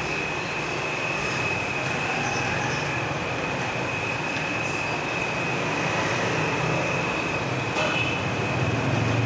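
Steady machine noise with one constant high-pitched whine.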